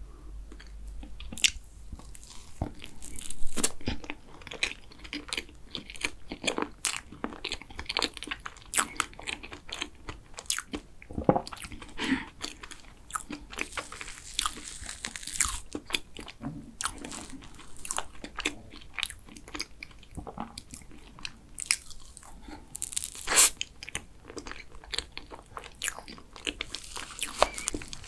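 Close-miked chewing and crunching of cookies-and-cream cake, with a spoon scraping and clicking in its clear plastic cup.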